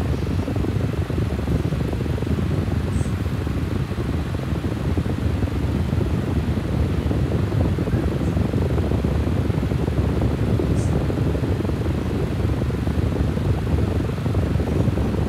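Steady low rumbling background noise, like a motor or fan running, with a few very faint high ticks.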